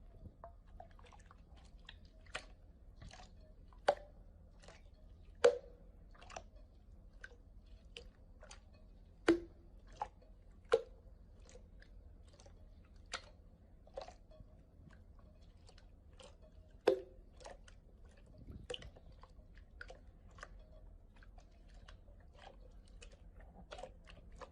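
Slime being pressed and squeezed by hand, making irregular sharp pops and clicks, with about a dozen louder snaps spread through, over a faint steady low hum.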